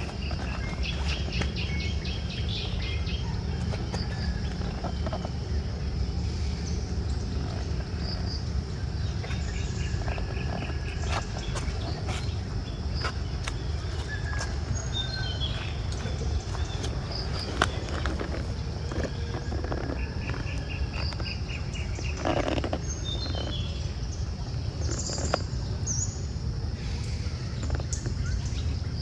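Forest ambience with bird calls: short high chirps and several rapid trills, each a second or two long. They sit over a steady high insect drone and a steady low rumble.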